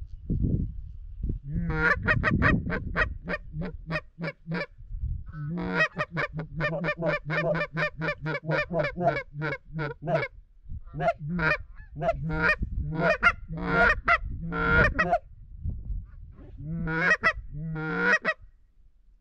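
Canada goose honks and clucks in rapid runs of several calls a second, broken by short pauses.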